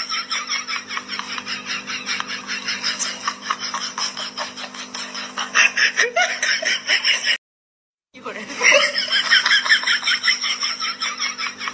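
Rapid, repeated laughter, the kind of laugh sound effect laid over funny clips. It cuts out for under a second about two-thirds of the way through, then starts again.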